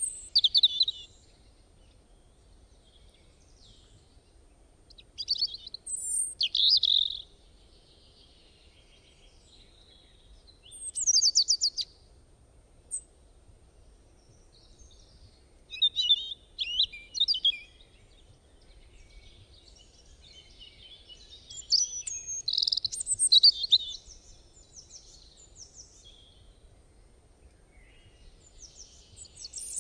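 Bird chirping in short bursts of quick high-pitched chirps and trills, one burst every few seconds, with a faint low background rumble.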